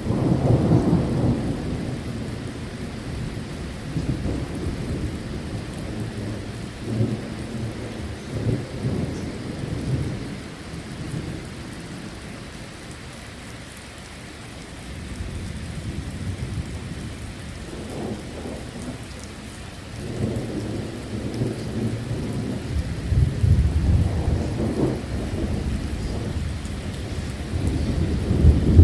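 Thunder rumbling over steady rain. The rumble is strong at the start, dies away through the middle, and builds again into a second, louder spell of rumbling from about two-thirds of the way in.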